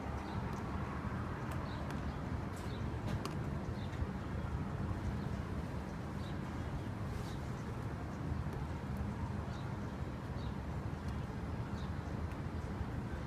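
Distant music from nearby, heard mainly as a low bass, with faint bird chirps now and then.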